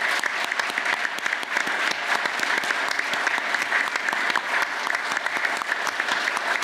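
Audience and panel applauding steadily, many hands clapping at once.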